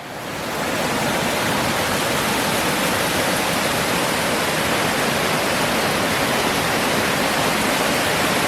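Waterfall rushing: a loud, steady roar of falling water that swells in over the first half second and then holds even.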